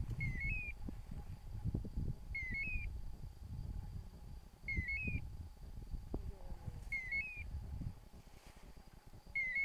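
Common quail calling: a short three-note call repeated about every two seconds, five times, over low rumbling noise.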